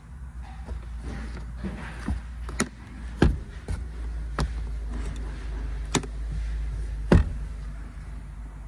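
A series of sharp clicks and knocks, about six over several seconds, from hands handling the interior trim in a car cabin, over a steady low hum.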